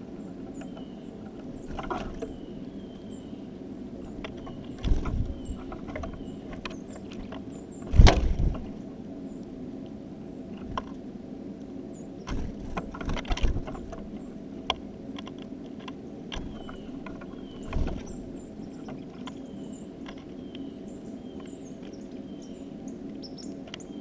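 Small birds at a window feeder: irregular knocks and taps as they land and peck at seed, the loudest about eight seconds in, with short, faint high chirps scattered throughout.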